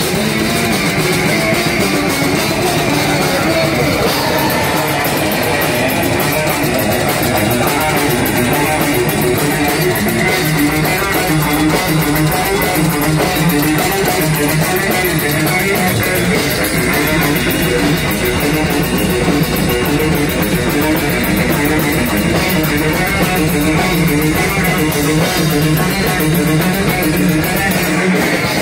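Metal band playing live: electric guitar and drum kit together, with fast, even drumming through most of it.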